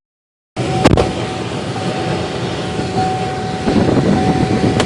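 Pickup truck running, with steady road and engine noise, a thin steady whine and a couple of sharp clicks.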